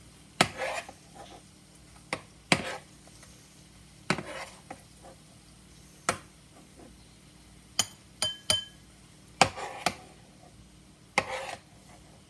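Metal spoon scraping and clinking against a frying pan while stirring and scooping fried apple slices: about eight short, sharp scrapes and taps spread through the stretch.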